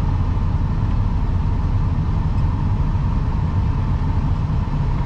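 Semi truck's diesel engine running steadily at low speed with a low drone, heard from inside the cab as the truck creeps through a parking lot.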